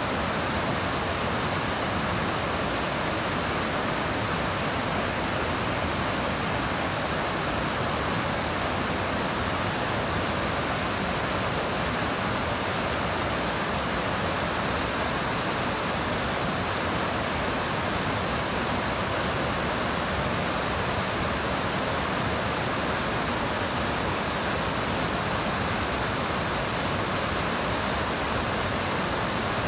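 South Fork Snoqualmie River in high flow after heavy rain, rushing over boulders. The water noise is a steady, unbroken rush.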